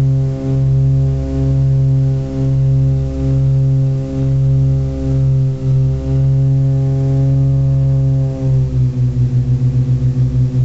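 Britten-Norman Trislander's three piston engines and propellers droning in the cabin, with a slow pulsing about once a second as the propellers run slightly out of step. About eight seconds in the pitch drops a little and the pulsing quickens to around six beats a second.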